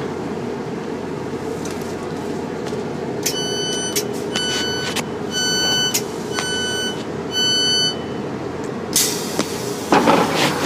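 A passenger train's door warning beeps sound in five short bursts over the steady hum of the standing train. Near the end come a brief hiss and a knock.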